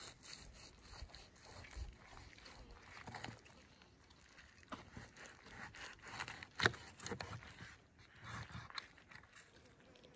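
Knife and fork cutting through whole roast chickens on a metal tray: soft scraping and tearing of the meat and skin, with scattered light clicks and one sharper click about two-thirds of the way through.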